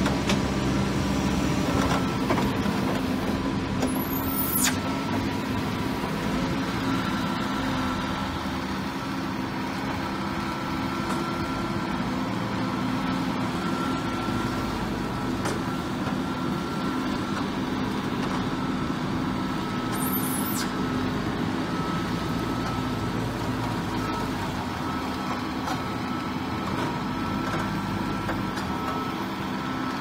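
Diesel engine of a JCB telescopic wheel loader running steadily while it works a silage grab bucket. Two brief high squeals come through, one about four seconds in and one about twenty seconds in.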